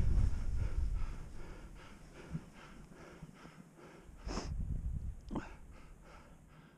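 Wind rushing over the microphone dies away as a skier slows to a stop in powder snow, leaving the skier's heavy breathing, with two louder breaths a little past the middle.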